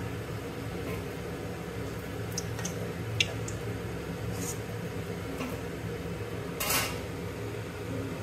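A slotted spoon clinks and taps against the kadai as a puffed luchi is lifted out of the frying oil. The sharpest clink comes about three seconds in, and a short scrape follows near the end. A steady low hum runs underneath.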